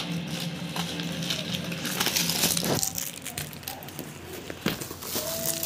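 Cardboard parcel and plastic wrapping being torn and crumpled by hand, an uneven run of ripping, crinkling and crackling with a few sharp snaps, busiest around two to three seconds in.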